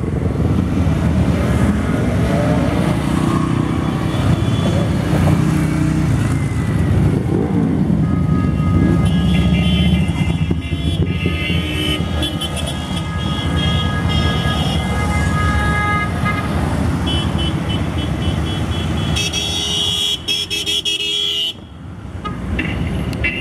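A procession of motorcycles drives past, their engines running and revving. From about eight seconds in, car horns honk repeatedly, in long and short blasts, as a line of old cars follows.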